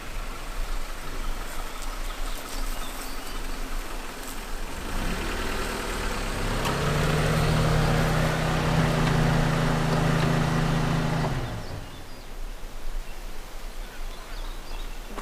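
An engine picks up speed about five seconds in, runs at a steady pitch for several seconds, then cuts off abruptly.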